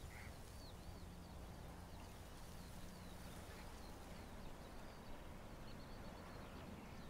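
Faint outdoor ambience with small birds chirping now and then over a low steady background hum.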